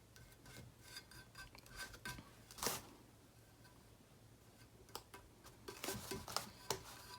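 Faint scattered clicks, rustles and rubbing of hands handling a printable vinyl decal and a resin-coated tumbler, with one sharper click about two and a half seconds in and a busier patch of small clicks near the end.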